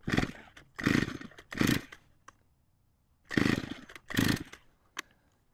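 Stihl MS201T two-stroke chainsaw cranked by its recoil starter for a compression test, without firing. There are five short pulls: three in quick succession, a pause, then two more.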